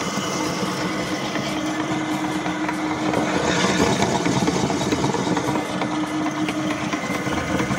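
Motor-driven meat grinder with a large red drive wheel running empty, its mechanism giving a steady whirring hum.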